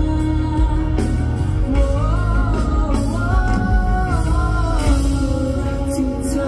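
Amplified live pop music at a concert: male voices sing a held, gliding melody over heavy bass from the PA, recorded from the crowd.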